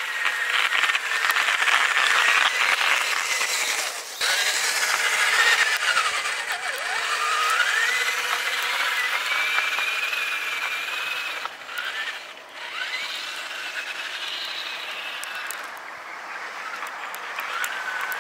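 Electric motor and gear whine of an HG P407 radio-controlled truck, the pitch rising and falling as the throttle changes, over a steady hiss of the truck driving on snow. The whine cuts out briefly about four seconds in and again around twelve seconds.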